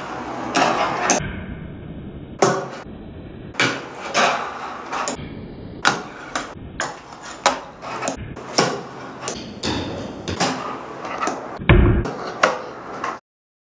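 Fingerboard deck and wheels clacking and knocking on a hard tabletop obstacle as tricks are popped and landed: irregular sharp clicks, one or two a second, with a heavier thud about twelve seconds in. The sound cuts off just before the end.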